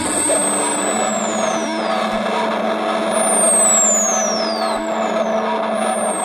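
Experimental noise music: a dense wash of hiss with steady held tones underneath, crossed three times by a long high whistle that slides downward over about two seconds, each with fainter sliding copies above it.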